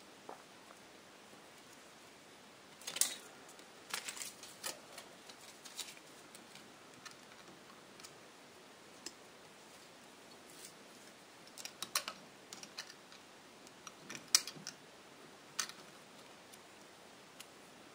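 A steel feeler gauge clicking and scraping against the rocker arm and valve adjuster of a bare Minarelli 125cc cylinder head while the valve clearance is checked: scattered light clicks in a few small clusters.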